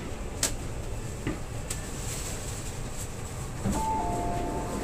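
Cabin noise of an MTR East Rail Line R-train arriving at a station: a steady low running rumble with a few sharp clicks. Near the end a two-note chime sounds, a higher tone followed by a lower one.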